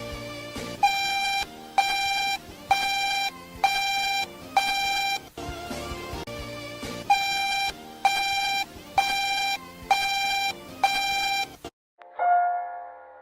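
Emergency alert alarm: a harsh electronic beep, one pitch with a buzzy edge, repeating about one and a half times a second in two runs of about seven beeps with a short break between. It cuts off near the end, and a different electronic tone sequence starts just after.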